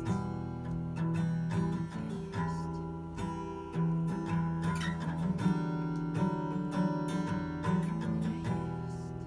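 Acoustic guitar strumming chords as an instrumental passage with no voice. The last chord is left to ring and fade near the end.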